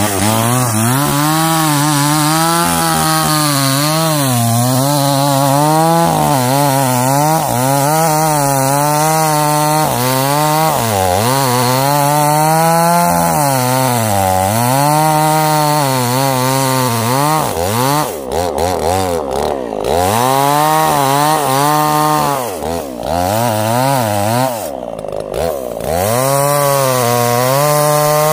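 Two-stroke chainsaw at high revs cutting into the base of a sengon tree trunk, the engine pitch repeatedly sagging and recovering as the chain loads up in the cut. In the second half the saw drops its speed briefly several times before pulling back up.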